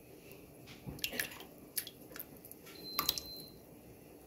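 Faint taps and soft squishy plops as tomato paste is shaken and scraped from a jar into a pot of broth and rice. A brief thin high beep sounds about three seconds in.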